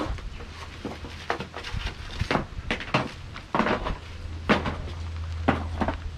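Stones of an umu clacking and knocking against one another as rocks are shifted by hand and with tongs: about a dozen irregular knocks, over a steady low hum.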